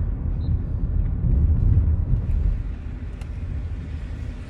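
Car driving, a low road and engine rumble heard from inside the cabin, louder for the first couple of seconds and easing off after about two and a half seconds.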